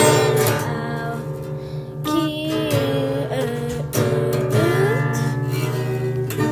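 A song: strummed acoustic guitar with a singing voice drawing out held, bending notes.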